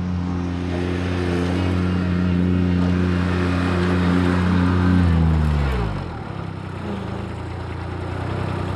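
Grasshopper 721D zero-turn mower's diesel engine running steadily as the mower drives up. About five seconds in the engine is shut off, and its note falls in pitch as it winds down to a stop.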